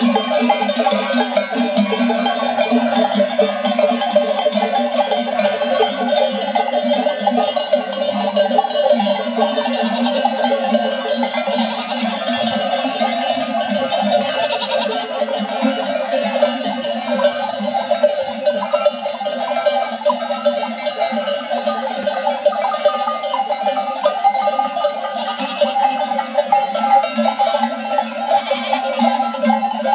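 Dozens of traditional Provençal sheep bells (platelles, piques, clavelas and redons) clanking and jangling continuously and densely as a large flock of sheep and goats walks past.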